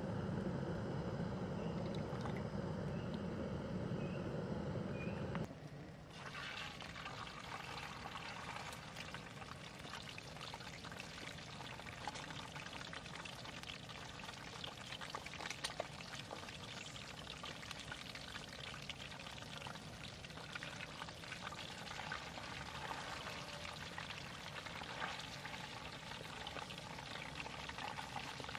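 Cooking oil poured into a frying pan over a gas-canister stove, with a low steady rush under it. About five and a half seconds in, this cuts to catfish frying in hot oil: a steady sizzle with many small crackles.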